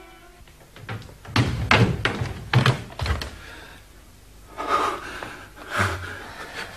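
Several dull thuds and knocks, irregularly spaced, with two clusters in the first half and a couple more later.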